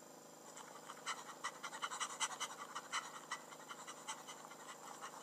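Short, quick breathy puffs from a panting animated character, about three or four a second, starting half a second in.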